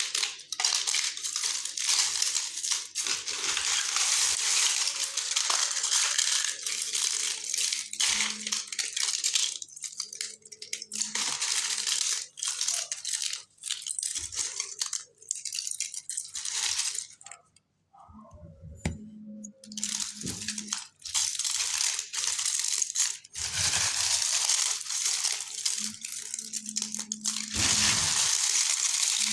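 Dry multani mitti (fuller's earth clay) being crushed and crumbled by hand: long runs of gritty crunching and crackling, broken by short pauses and one brief silence about two-thirds of the way through.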